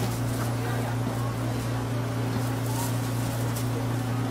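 A machine's steady low hum, running evenly without change, with faint voices in the background.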